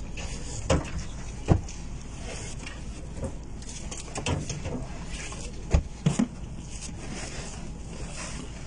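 A few sharp knocks and thumps, with rustling between them, as hands shift plastic-wrapped packages in a compartment under the floor, over a steady low hum. The loudest knocks come about a second and a half in and near six seconds.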